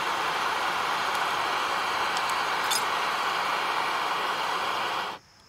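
Fire-Maple backpacking canister stove with its gas valve open, propane hissing out of the burner in a steady loud rush, then cutting off abruptly about five seconds in as the valve is turned down to off.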